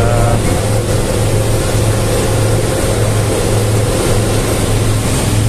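Engine and road noise heard from inside a moving bus: a steady low rumble that swells and eases, under an even hiss.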